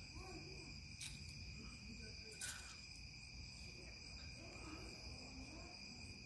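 Steady chorus of insects trilling high and unbroken, with two faint clicks about one and two and a half seconds in.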